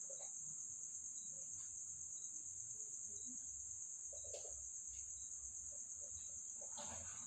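Crickets chirring in one steady, high, unbroken trill, with a few faint knocks, the clearest about four seconds in.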